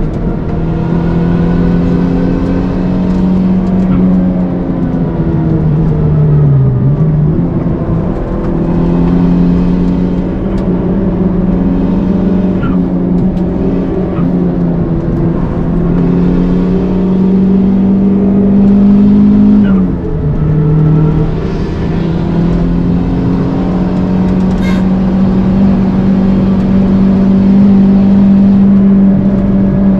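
Toyota Starlet Glanza V's turbocharged 1.3-litre four-cylinder engine running hard at high revs on track. The revs drop sharply about seven seconds in and again about twenty seconds in, then come back up, and it holds a steady high pitch through the last stretch.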